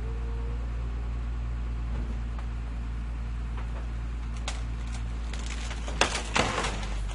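Garbage truck engine idling steadily, with a couple of sharp clanks about four and a half seconds in and a loud burst of clattering knocks about six seconds in as the garbage container is worked.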